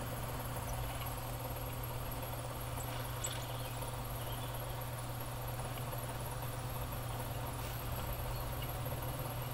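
Steady low hum with a few faint, brief high chirps about three seconds in, likely lovebird calls from the video being played.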